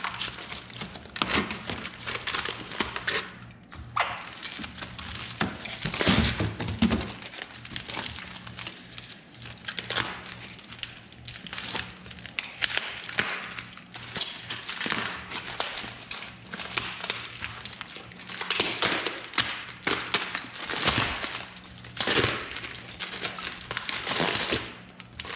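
Plastic wrapping rustling and crinkling in irregular bursts as it is cut with a utility knife and pulled off a prismatic battery cell. A few dull knocks come from handling the cell and its cardboard packing.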